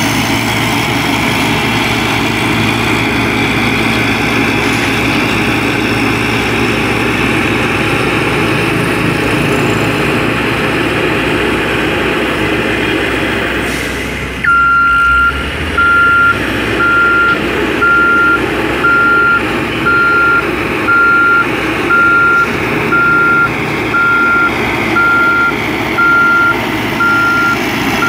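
Diesel engine of a heavy construction machine running steadily. About halfway through, its reversing alarm starts: a single high beep repeating a little over once a second, louder than the engine.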